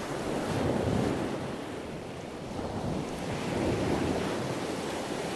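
Ocean waves washing in: a steady rushing surf that swells twice.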